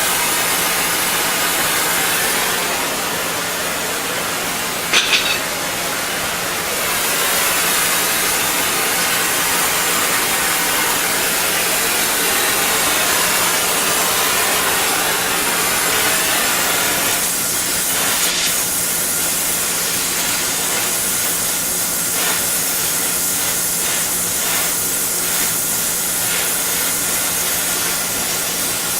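Oxy-fuel torch with a number 2 tip hissing steadily as it heats metal. A sharp click comes about five seconds in, and faint rapid ticking in the last third.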